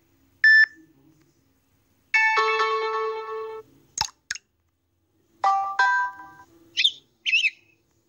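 Samsung Galaxy Tab A notification tones previewed one after another through the tablet's speaker. In turn come a single short beep, a longer held chime, two quick bubble pops, a two-note bell chime, and two bird-like chirps.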